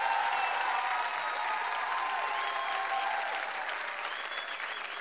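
Studio audience applauding after a punchline, the applause swelling just before and slowly dying down.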